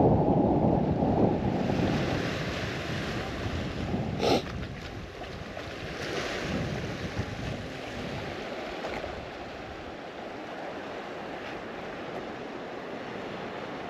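Wind buffeting the microphone, strongest in the first couple of seconds and then easing to a steadier rush, with a single short click about four seconds in.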